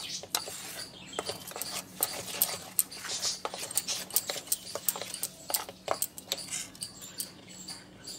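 Steel spoon stirring a thick lentil paste in a stainless steel bowl: irregular clinks and scrapes of the spoon on the metal, several a second, thinning out near the end.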